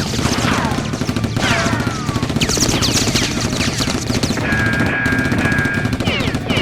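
Rapid bursts of gunfire sound effects over a music bed, mixed with many quick falling-pitch whistles.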